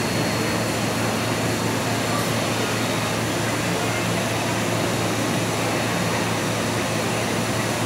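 R211 subway car standing at the platform with its air conditioning and onboard equipment running: a steady rushing hum with a low drone and a faint high whine.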